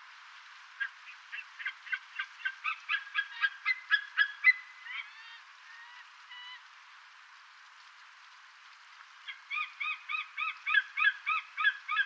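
Sea eagle calling: a run of short, high call notes that quickens and grows louder for about four seconds, trailing off in a few drawn-out notes. A second run of evenly spaced notes, about four a second, starts near the end.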